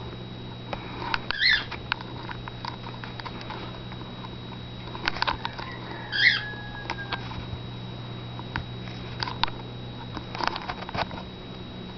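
A cat moving about on bedding: scattered soft patter and rustles, with two brief squeaks about a second and a half in and about six seconds in, over a steady low hum.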